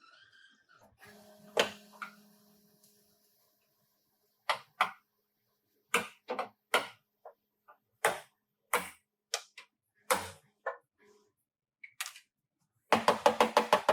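Irregular sharp knocks and clicks of hand tools on a car's metal bodywork, about a dozen spread unevenly, with a short ringing tone after one knock early on. Fast rhythmic percussion music starts near the end.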